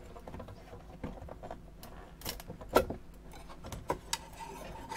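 Scattered light clicks and knocks as the retention bar over the circuit cards in an electronics card cage is handled and worked loose.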